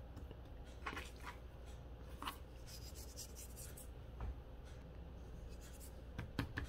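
Faint rubbing and soft taps of hands turning and seasoning a raw beef chuck roast on a cutting board, with a brief light hiss of salt and pepper being sprinkled.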